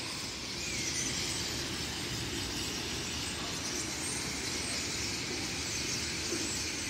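Steady street background noise with a few faint, short, high bird calls now and then.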